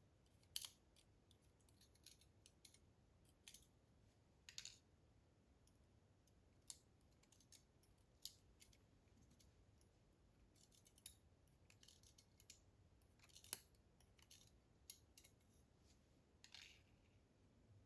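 Faint, scattered light metallic clicks and ticks at uneven intervals: the tiny springs and driver pins of an Abus EC700 dimple lock cylinder being picked out with a tool and set down as the lock is taken apart.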